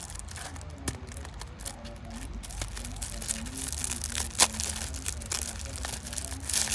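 Clear plastic film on a sand-art card crinkling and crackling as fingers handle it and peel it back from the sticky backing, with a sharp crackle just past the middle.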